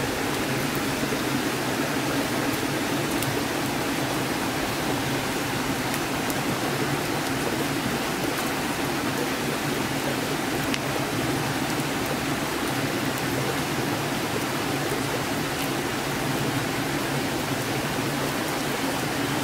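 Steady rush of flowing stream water, with a few faint crackles from the campfire.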